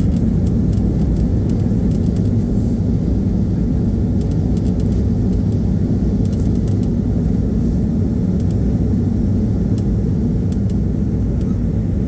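Boeing 737-800's CFM56-7B engines in reverse thrust during the landing rollout, heard inside the cabin: a loud, steady low rumble together with the runway roll, easing slightly near the end as the aircraft slows.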